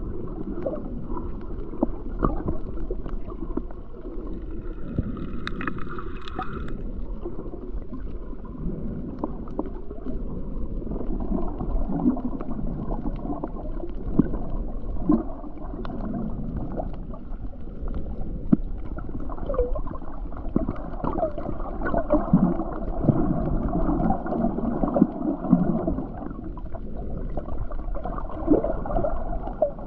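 Muffled underwater water noise heard through a camera's waterproof housing: steady gurgling with scattered small clicks and pops. A brief higher whine comes in about five seconds in and fades after a second or two.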